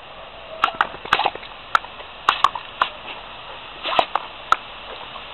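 Yellow Labrador snapping its jaws at the spray from a garden hose nozzle: about ten sharp, irregular snaps over the steady hiss of the spray.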